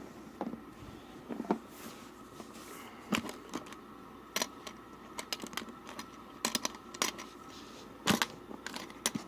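Locks and latches on a hard carrying case being worked open by hand: a series of sharp clicks and knocks at irregular intervals, with small rattles between them.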